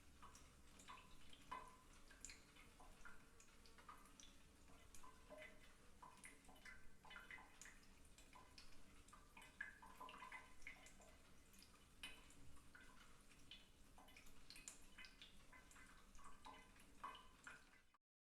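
Faint water drops and small plinks in a bathtub, irregular and several a second, over a low steady hum. The sound cuts off suddenly near the end.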